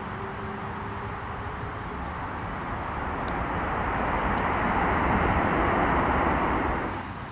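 Twin-engine widebody jet airliner on its landing roll, its engines making a rushing noise that swells from about three seconds in and drops off suddenly near the end.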